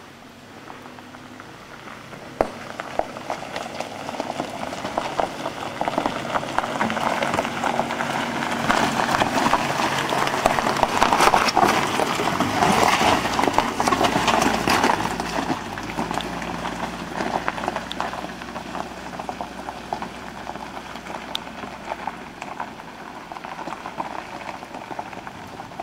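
An SUV driving slowly past on a loose gravel road: tyres crunching and popping stones over a low engine hum. The sound builds as it approaches, is loudest about halfway through as it passes close, then fades as it climbs away up the track.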